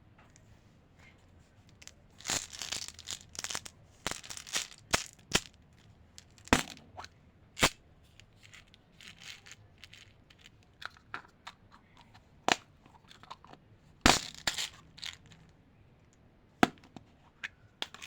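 Plastic candy wrappers and packaging crinkling and tearing, broken by sharp clicks and taps as the candies are handled. There are two longer spells of crinkling, about two seconds in and again near fourteen seconds, with single clicks between them.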